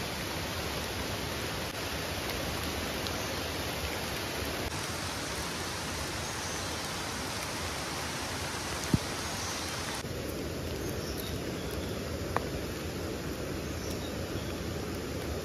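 Steady, even rushing hiss of outdoor ambience, with a few brief sharp snaps as wild termite mushrooms are picked by hand.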